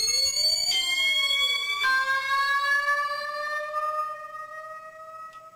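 MacBeth M5/M5N analog synthesizer playing a patch: three held notes, each lower than the one before and each slowly gliding upward in pitch, with faint sweeping tones crossing underneath at first. The last note fades away near the end.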